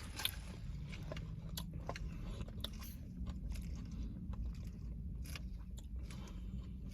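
A person chewing and biting food close to the microphone, with scattered small crunches and mouth clicks.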